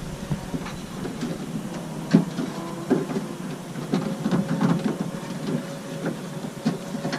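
Scattered clicks, knocks and rattles of a car door handle and its linkage being worked loose by hand inside the door, with one sharp click about two seconds in.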